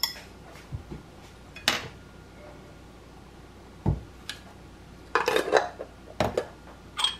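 A few separate clinks and knocks of kitchenware being handled on a counter: a metal whisk and a tin can set aside, then a metal spoon taken from a glass jar, with a quick run of clinks about five seconds in.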